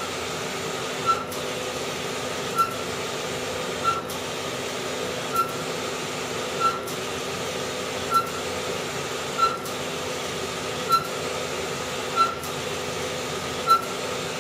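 Wide-format sublimation inkjet printer printing: a steady running whir with a short knock about every second and a half as the print-head carriage sweeps back and forth across the paper.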